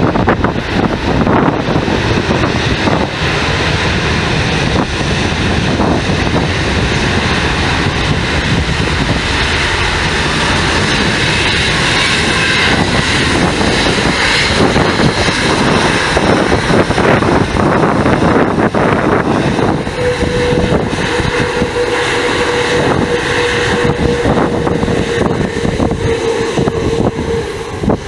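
Rolls-Royce Trent 7000 turbofans of an Airbus A330-900neo running steadily at low thrust as the airliner taxis past, a continuous rumble and hiss. About twenty seconds in a thin steady whine joins it, sagging slightly in pitch before fading near the end.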